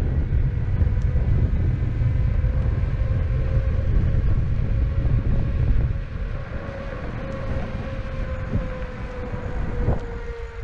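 Electric skateboard's direct-drive motors whining at a steady pitch while riding, under heavy wind buffeting on the microphone. The wind rumble eases about six seconds in, and the whine sinks slightly in pitch near the end as the board slows.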